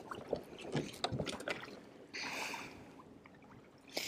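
Faint scattered clicks and handling noises from a spinning rod and reel while a hooked fish is being reeled in, with a short soft hiss about two seconds in.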